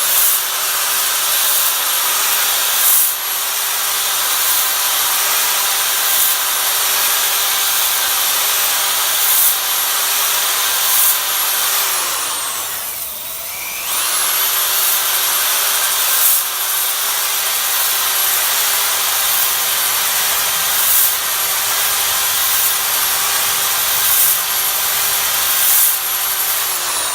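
Electric drill spinning a ball hone in a cylinder bore of a 5.3 L LS V8 block, a steady motor whine over abrasive scraping. It winds down and stops about twelve seconds in, starts up again a couple of seconds later, and winds down again near the end.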